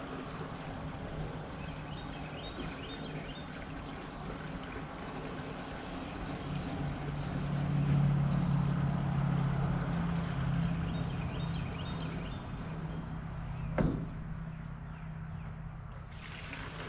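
An engine running steadily at a low speed, growing louder for several seconds in the middle and easing off again, with one sharp knock near the end.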